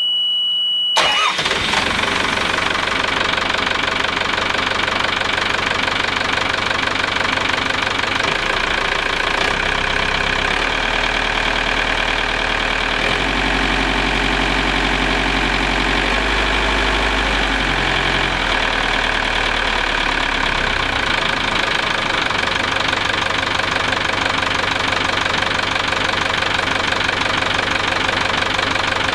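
Yanmar 240 hp turbo diesel stern-drive engine starting about a second in, cutting off a steady high beep, then idling steadily. Its low hum shifts in steps through the middle.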